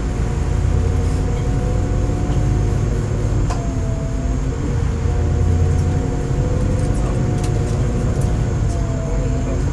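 Underfloor diesel engine of an ex-DSB IC2 railcar heard from inside the cabin as the train pulls away slowly: a steady low rumble with several held tones and a few light clicks. The engine is said to sound off, and the acceleration is sluggish.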